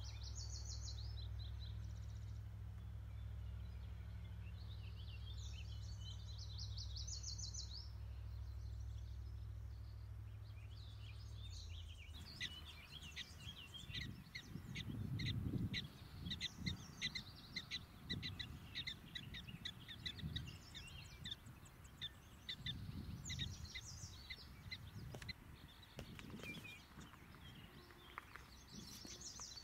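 Outdoor birdsong: short bursts of fast, high trilling over a steady low hum. About twelve seconds in the hum stops, and a long run of quick, sharp, repeated chirps follows, with gusts of wind on the microphone.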